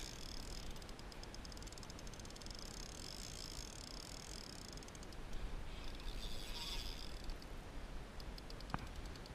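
Quiet wash of calm sea water around the paddle board, with stretches of faint, fast ticking from the spinning reel being wound.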